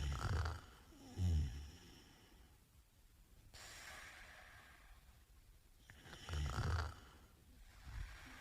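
A man snoring in his sleep. Loud snores come at the start and again just over a second later, and another comes about six seconds in. Between them is a softer breath and a short faint snore near the end.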